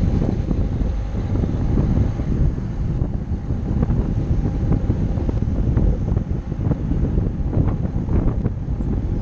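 A car driving along a city street, heard as heavy wind buffeting on the camera microphone over low road and engine rumble. A few short knocks come through in the second half.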